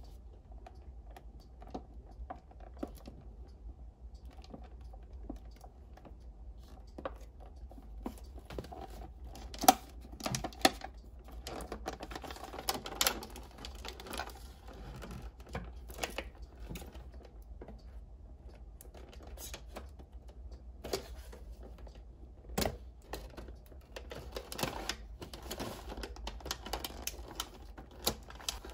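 Fingernails tapping and fingers rubbing on a cellophane-wrapped cardboard toy box, with crinkling plastic wrap: an irregular run of light clicks and rustles, with a few sharper snaps.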